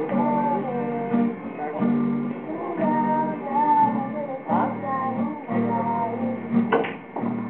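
Girls singing a song together, their held notes rising and falling, over a strummed acoustic guitar keeping a steady chord rhythm.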